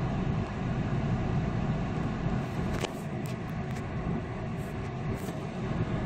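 Steady engine and road noise of a car heard from inside its cabin while it drives slowly in traffic, with a few faint clicks around the middle.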